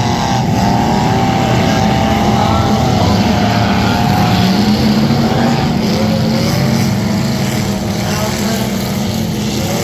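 Demolition derby car engines running loud at high revs, with a high whine that wavers in pitch and drifts lower about halfway through.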